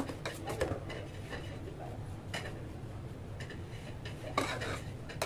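A few light clicks and knocks over a steady low hum.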